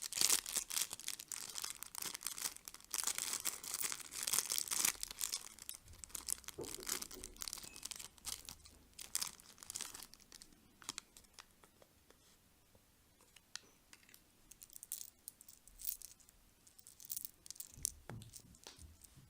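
Plastic candy packaging being torn open and crinkled by hand: a dense run of crackling for about the first half, then sparser crinkles and small clicks.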